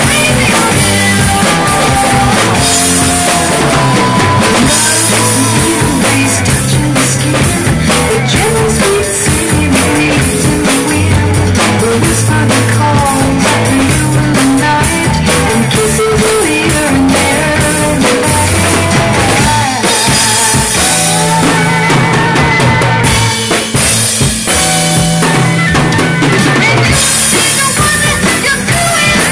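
Acoustic drum kit with Zildjian cymbals played hard in a rock groove, bass drum, snare and crashing cymbals, over a loud rock recording with melodic instrument lines.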